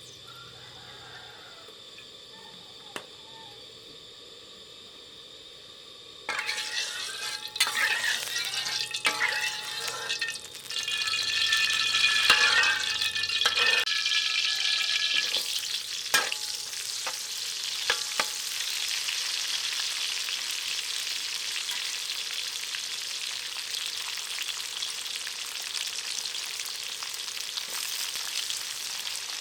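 Food frying in hot oil for a stir fry. About six seconds in it starts to sizzle loudly and abruptly with crackling, as if ingredients were dropped into the pan, then eases into a steady frying sizzle. Before that there is only a faint background with a single click.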